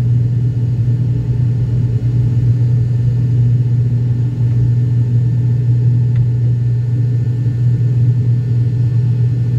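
Turboprop airliner's engine and propeller heard from inside the cabin in flight: a loud, steady low drone with a constant deep hum.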